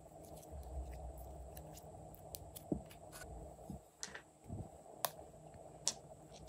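Soft squishing of glitter slime being stretched and handled, then a few small sharp clicks and taps as little plastic bottles are picked up and handled.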